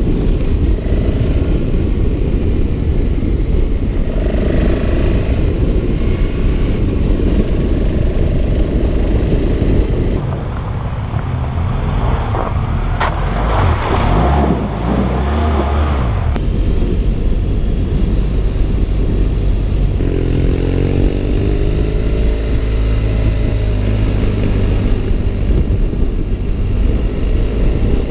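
Motorcycle engines heard from the rider's seat on a helmet camera, in several bikes one after another: a single-cylinder BMW F650 GS, a BMW F700 GS on a sandy offroad track, and a BMW F800 GS. About two thirds of the way through, an engine revs up with a rising pitch.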